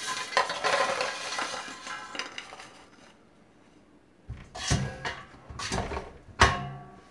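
Crisp popcorn chicken pieces tumbling out of an air fryer basket onto a plastic plate, a dense clatter for about three seconds. Then a few separate knocks as the metal basket is set back down into the air fryer's drawer.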